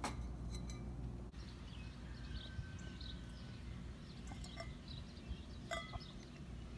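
Faint, scattered chirping of small birds, with a brief click at the start and a couple of light clinks, the clearest near the end.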